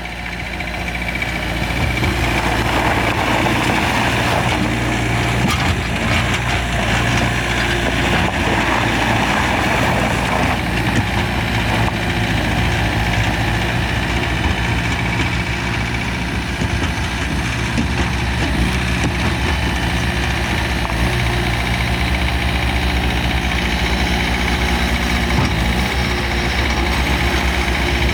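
2020 Bobcat S550 skid steer's diesel engine running, growing louder over the first two seconds and then holding steady.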